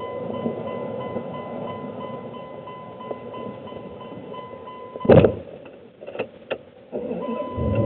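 Inside a pickup truck's cab: a steady electronic warning tone, a loud thud about five seconds in, then a couple of sharp clicks. Near the end the engine starts and runs with a low, steady sound.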